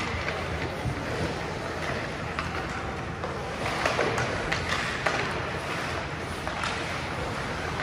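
Ice hockey rink sound: a steady hiss of skates scraping on the ice, with a few sharp clacks of sticks or puck near the middle.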